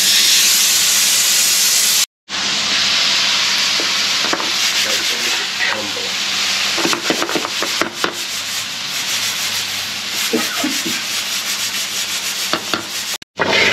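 Loud, steady hiss with faint voices underneath, cutting out briefly twice.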